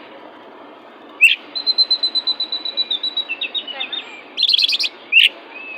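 Oriental magpie-robin (kacer) singing an aggressive, varied song: a sharp upswept note, a fast run of repeated high notes, a quick rattle and a short whistle, over steady hiss.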